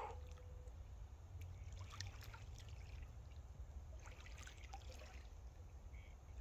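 Faint lakeshore ambience: a low wind rumble on the microphone with faint water lapping at the rocks, and a soft click right at the start.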